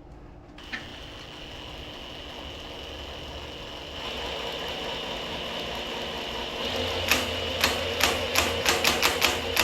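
Small power tool whirring steadily as it spins the oil pump to prime a rebuilt small-block Chevy 350 and build oil pressure. From about seven seconds in, a quick irregular run of sharp clicks joins the whir.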